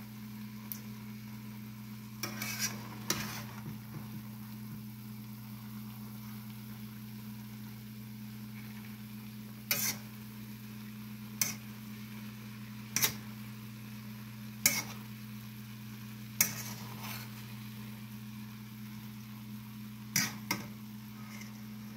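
Metal spatula scraping and clinking against a stainless steel wok as quinoa with shrimp and vegetables is stirred and turned, with sharp clinks every second or two in the second half, over a steady low hum.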